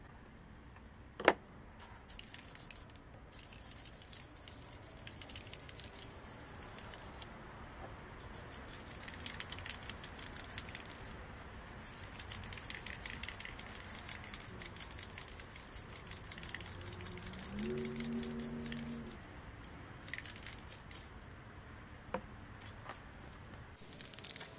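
A sharp click about a second in, then rapid scraping strokes in spells with short pauses, and a brief low squeak around eighteen seconds in.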